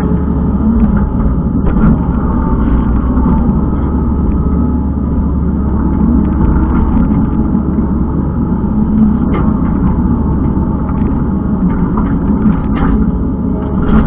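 Kubota skid steer's diesel engine running steadily under working load, with a few brief clanks along the way.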